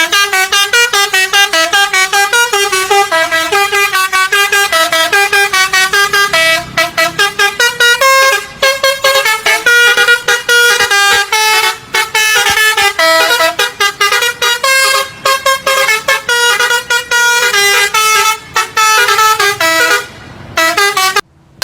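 Indonesian bus 'telolet' Basuri multi-tone horn playing a fast, bouncing tune of short honked notes, several a second, jumping between pitches, with a brief break near the end.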